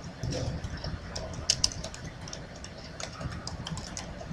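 Irregular light clicks and taps, the two loudest close together about a second and a half in, over a steady low background rumble.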